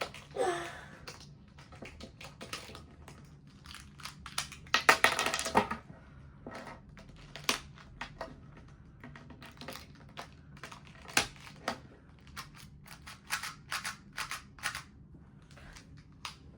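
Small plastic pieces of a 2x2 Rubik's cube clicking and clattering as they are pressed and snapped back into place while the last corner is worked in, with a denser burst of rattling about five seconds in.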